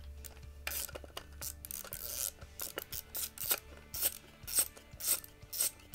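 Allen-head stock bolt being unscrewed from inside a Henry Homesteader's wooden buttstock with a hand-turned hex wrench: a series of short rasping, clicking strokes, about two a second.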